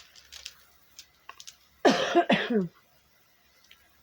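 A woman coughing twice in quick succession about two seconds in: a lingering cough from an illness she is getting over.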